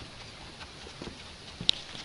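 Black Labrador puppy's claws ticking on wooden deck boards as it trots, a few light taps with one sharp, much louder click about three-quarters of the way through.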